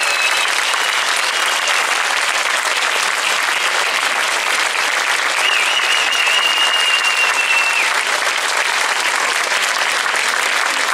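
Audience applauding steadily, with a thin high steady tone held for about two seconds midway.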